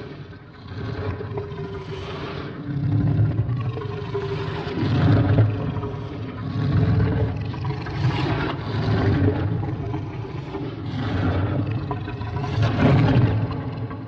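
Monster sound effect designed from lion roars and growls: a run of deep, pitched growls, one swelling up every second or two, tailing off near the end.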